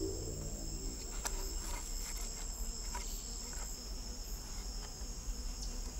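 Steady high-pitched chirring of forest insects, two constant high tones with a few faint clicks. Soft music fades out during the first second or so.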